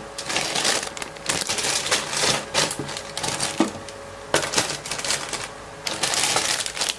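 Plastic bags and parts rustling, crinkling and clicking as the model kit's contents are handled and packed back into the cardboard box. The sound comes in irregular bursts with brief lulls.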